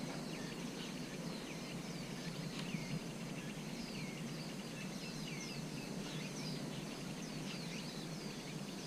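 Birds chirping: many short, falling chirps over a steady low background noise.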